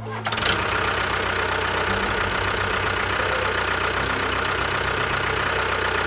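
A motor running steadily after starting abruptly, with a constant high hum over a low, rattling rumble.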